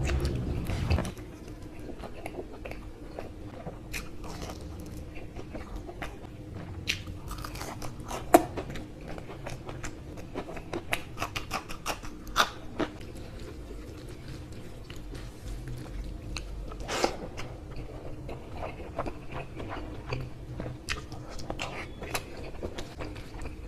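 Close-miked chewing and biting by a man eating rice and curry by hand, with sharp mouth clicks scattered throughout, the loudest about eight seconds in, over a faint steady hum.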